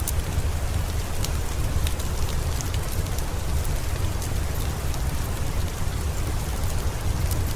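Steady rain with a heavy low rumble, over which a fireplace's wood fire gives scattered small, sharp crackles and pops.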